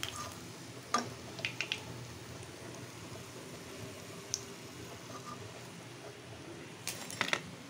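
Hot oil sizzling in a kadai as beguni (eggplant fritters) are lifted out on a steel slotted spoon, with a few sharp metal clicks and taps of spoon against pan, including a cluster near the end.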